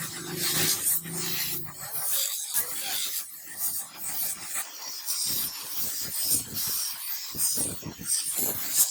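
A hand file rasping back and forth in short, repeated strokes, about three a second in the second half.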